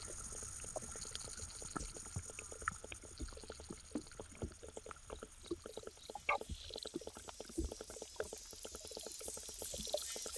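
Underwater pond insect sounds heard through a hydrophone: a dense, irregular run of short clicks and ticks over a faint steady high hiss. The clicking is a lesser diving beetle contracting its muscles, read as warming up for takeoff.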